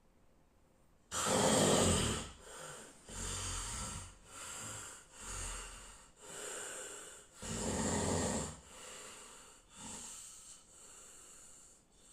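Snoring: a run of rough, rasping breaths about one a second, starting suddenly about a second in, the first and one about eight seconds in the loudest.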